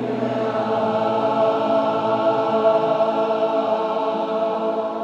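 Gospel choir singing one long sustained chord, the voices holding steady and then starting to fade near the end.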